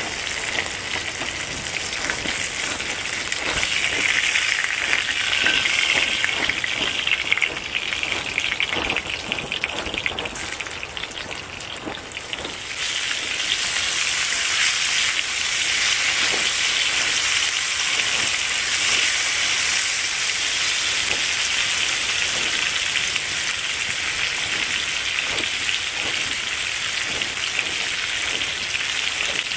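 Hot fat sizzling and crackling in a cast-iron skillet as food fries. About 13 seconds in the sizzle grows louder and brighter as strips of red bell pepper go into the hot fat, and it keeps on steadily while they cook.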